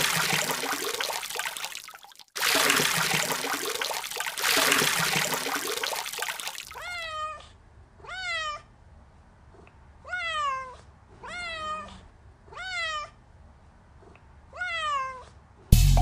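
Rushing water and wind noise with a brief break, then a cat meowing six times, each meow rising and falling in pitch.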